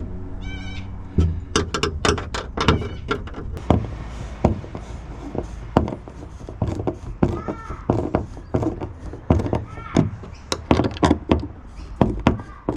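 A busy run of irregular clicks, knocks and thunks, several a second, from hard parts being handled and fitted together, with a few short squeaky pitched sounds in between.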